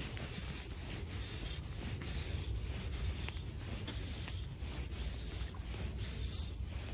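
Jacket fabric rubbing against the camera microphone in short scratchy strokes, about two a second, with the arm motion of stripping in fly line on the retrieve. A steady low rumble lies underneath.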